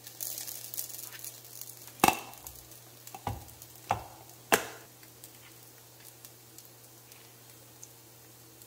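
Thick gochujang paste scraped out of a plastic tub with a flat utensil, then four sharp knocks of the utensil on a small ceramic bowl as the paste is knocked off, followed by a few faint clicks of chopsticks.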